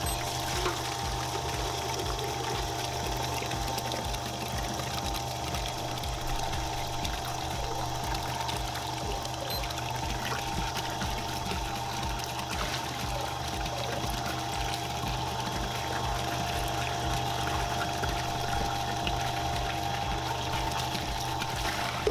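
Hanatsuka rotary pump running steadily while its discharge pours from a stainless outlet pipe into a tank of water, a continuous splashing over a steady hum with an even low pulsing.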